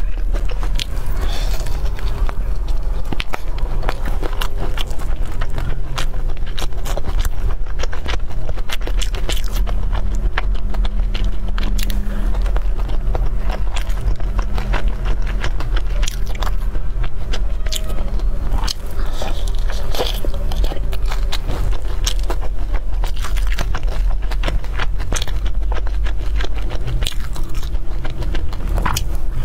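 Close-miked chewing and biting of soft red-wrapped rolls, with dense wet clicking mouth sounds, over a steady low hum.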